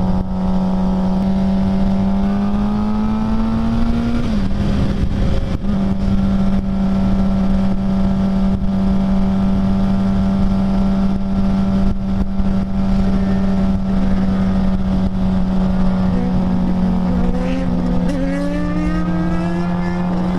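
Sport motorcycle engine running at a steady cruising speed, with wind noise. The revs climb for a couple of seconds, then drop with a gear shift about four seconds in, and a second engine note rises near the end.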